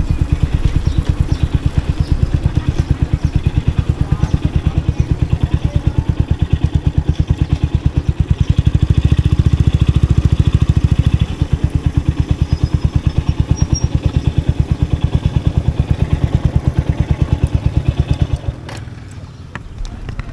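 Motorbike engine running with a rapid, even beat, a little louder around the middle, falling much quieter near the end.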